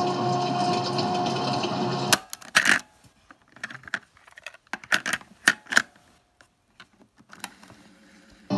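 A looped cassette recording plays through a Sony WM-D6C Walkman Professional and cuts off abruptly with a loud click about two seconds in. A series of sharp plastic clicks and clacks follows as the cassette is handled in the open deck, and playback starts again just at the end.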